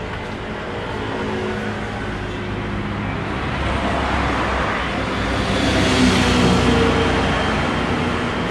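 Road traffic running steadily, with a vehicle passing that swells to its loudest about six seconds in.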